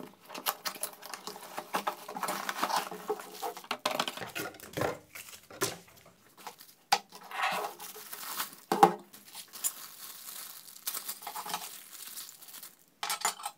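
Unpacking noises: a cardboard box and plastic bag wrapping rustling and crinkling, with scattered clicks and knocks as parts are set down on a table. Near the end a small plastic bag of metal nozzles is crinkled in the hands.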